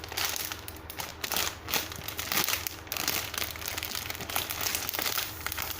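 Plastic packaging crinkling irregularly as a packaged squishy toy is handled and turned over.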